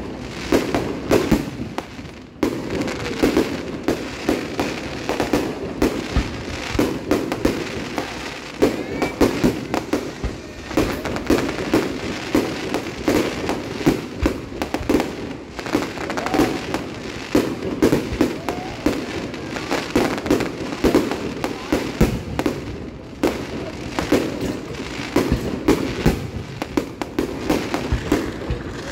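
Aerial fireworks display: a dense, continuous string of bangs and crackles, many per second, with no real pause.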